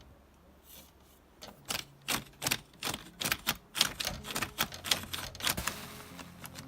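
A newly fitted doorknob being tried, its latch clicking and rattling about a dozen times in quick succession, some two to three clicks a second, starting about a second and a half in.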